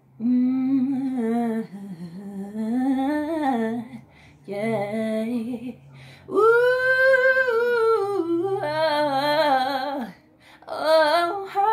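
A woman singing without accompaniment in about five phrases, with held notes that waver in pitch and quick melodic runs, separated by short pauses; the longest phrase comes around the middle.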